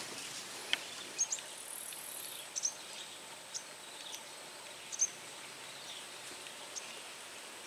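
Quiet outdoor ambience: a steady, faint, high insect whine, with scattered short chirps.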